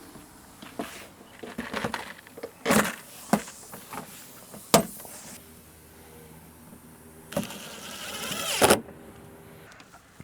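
Clicks, knocks and rattles of metal door-handle hardware and tools being worked inside a 1997 Jeep Wrangler's door, with one sharp snap about halfway through and a longer rising rasp near the end.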